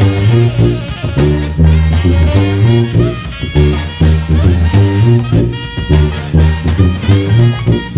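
Sousaphone playing a syncopated jazz-funk bass line in short, punchy low notes, over a backing track with drum-kit cymbal and hi-hat ticks.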